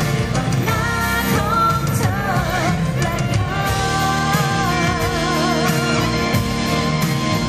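A woman singing a Thai pop song live with a band, electric bass and keyboard beneath her voice. About halfway through she holds a long note with vibrato.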